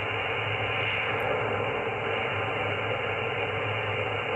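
Yaesu FT-901DM transceiver's receiver giving a steady hiss of band noise from its speaker with a low hum under it, as the tuning knob is turned up the 10-metre band and no station comes through.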